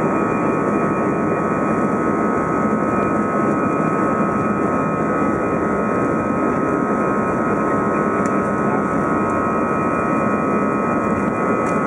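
Airbus A319 jet engines heard inside the passenger cabin: a steady, even rumble with a constant high whine over it.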